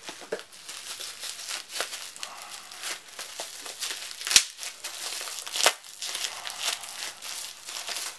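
Clear plastic bubble wrap crinkling and crackling as it is unwrapped by hand from a small item, with two sharper crackles about four and a half and five and a half seconds in.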